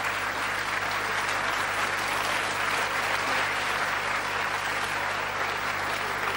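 Audience applauding steadily, with a low steady hum underneath.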